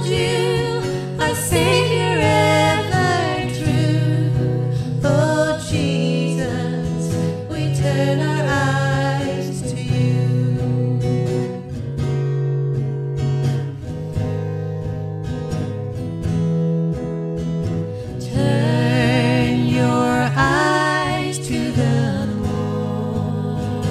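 Two women singing a worship song to a strummed acoustic guitar. The voices drop back around the middle and come in fuller again about three-quarters of the way through.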